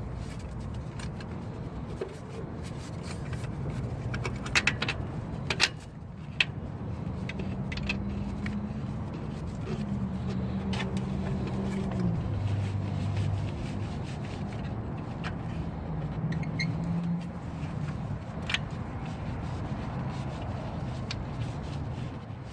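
Metal tools and bolt hardware clinking and scraping under the hood while an alternator mounting bolt is fitted, with a few sharp clinks about five to six seconds in. A low drone runs underneath, shifting in pitch around the middle.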